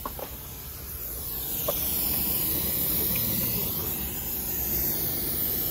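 Oxy-fuel brazing torch flame hissing steadily as it heats a copper refrigerant line joint at a condenser's service valve, growing louder about a second in.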